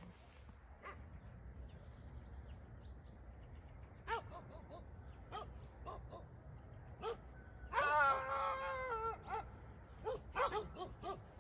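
Dogs barking: scattered short barks from about four seconds in, one long wavering howl around eight seconds, then a quick run of barks near the end.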